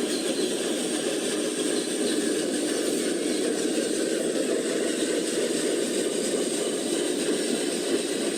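Radio-controlled toy vehicles' small electric motors and gearboxes running steadily.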